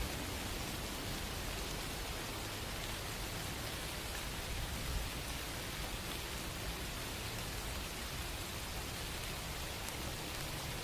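Steady rain sound: an even, unbroken hiss of falling rain with no music over it.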